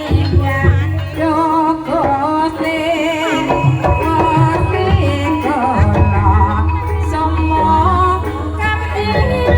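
Javanese ebeg accompaniment music: gamelan instruments play steady pitched notes over a sustained low rumble, while a singer's wavering, ornamented voice carries the melody.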